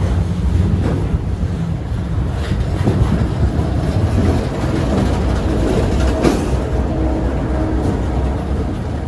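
A freight train of lumber-loaded centerbeam flatcars rolls past with a steady low rumble of wheels on rail. A New York & Atlantic diesel locomotive goes by with its engine running, and there is a sharp clank about six seconds in.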